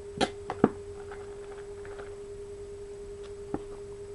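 Plastic squeeze bottle of leave-in conditioner being handled: three sharp clicks and taps in the first second, and one more about three and a half seconds in. A steady tone sounds underneath throughout.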